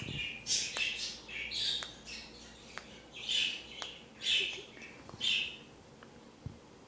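Young budgerigar chick giving a run of short, raspy squawks and chirps, about eight calls that stop about five seconds in.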